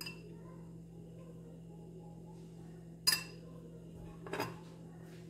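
A metal spoon clinking against ceramic dishes: a sharp clink about three seconds in and a softer one about a second later, over a steady low hum.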